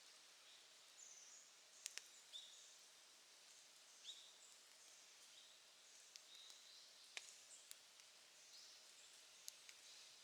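Faint wood campfire crackling, a handful of sharp pops scattered through it, over quiet high bird chirps repeating every second or two.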